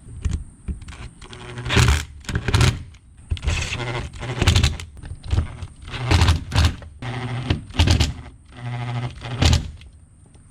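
Screws being tightened into the blank paddle-shifter covers on a steering wheel: a string of short mechanical bursts with knocks and scrapes, about one a second.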